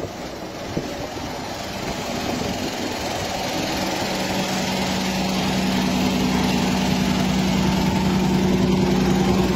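A vehicle engine running at a steady idle, growing steadily louder, with a steady hum coming through from about four seconds in.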